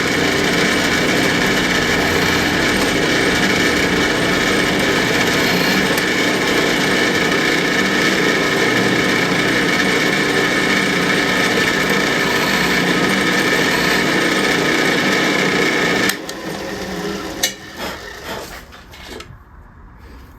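Old Delta Rockwell drill press running steadily, its motor hum holding one pitch, then switched off about sixteen seconds in and followed by a few light knocks.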